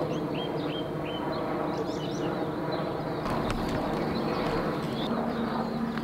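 Outdoor street ambience: a steady buzzing mechanical hum, with small birds chirping repeatedly over it and a few faint clicks a little past halfway.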